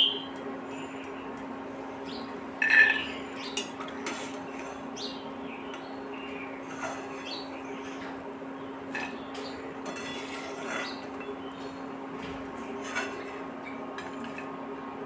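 Steel slotted spoon clinking and scraping against an aluminium karahi and a glass plate as fried nimki are lifted from the oil and tipped onto the plate. The sharpest clinks come at the start and about three seconds in, with lighter taps throughout over a steady low hiss of the frying oil.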